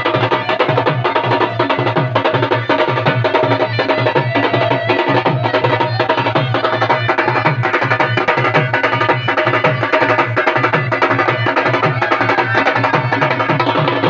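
Live street band playing: drums beat a fast, even rhythm while trumpets play a melody over them.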